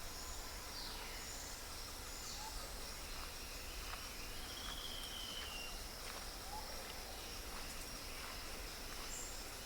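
Outdoor nature ambience: a steady high insect drone with scattered bird calls, including a falling whistle about a second in and a longer whistled note about three seconds in.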